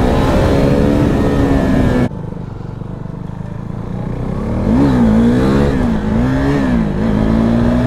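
KTM RC 390's single-cylinder engine running on the move. The sound drops in level about two seconds in, then a few seconds later the engine pitch rises and falls several times in quick succession before holding steady and climbing slowly.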